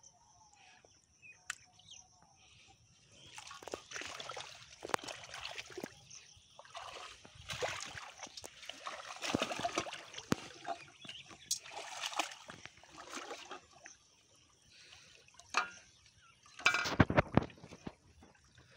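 Shallow pond water sloshing and splashing in irregular spells, with a brief louder burst of splashing and clatter near the end.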